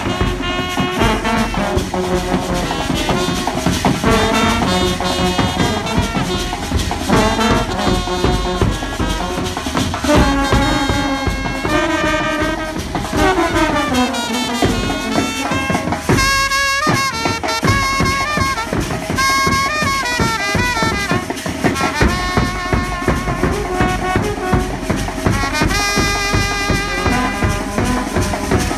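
Brass band music: a trumpet plays the melody over a steady drum beat, with a few sliding notes about halfway through.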